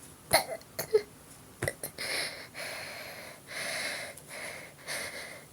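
A young woman breathing hard with a wheeze: a few short, sharp catches in the first two seconds, then two long, drawn, raspy breaths. This is strained breathing while she is being made to burp after drinking carbonated water.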